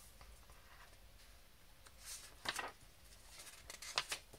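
Pages of a paperback picture book being turned by hand: a few short, faint paper rustles and snaps in the second half.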